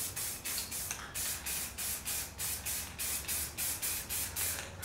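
Aerosol can of black spray paint spraying in short, quick pulses of hiss, about four a second.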